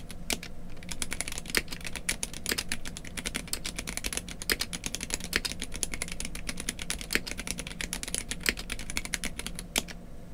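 Gamakay K87 acrylic-cased mechanical keyboard with Gateron Red linear switches, typed on quickly: a dense, continuous run of keystroke clacks that stops shortly before the end.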